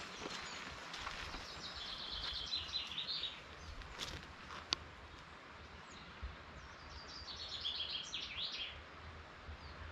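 A small songbird sings two short phrases of quick repeated high notes, about two seconds in and again about seven seconds in, over faint steady background noise. A single sharp click comes near the middle.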